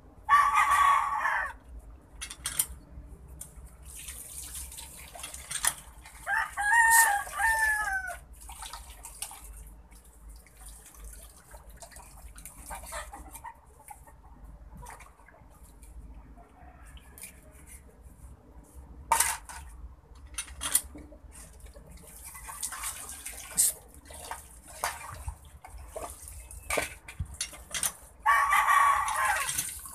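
A rooster crows several times, about a second in, around seven seconds and near the end, with chickens clucking. Between the crows come scattered knife clicks and scraping as fish are cleaned in a basin.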